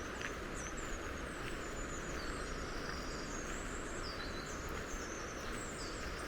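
Small songbirds twittering in quick, repeated chirps over a steady rush of flowing river water.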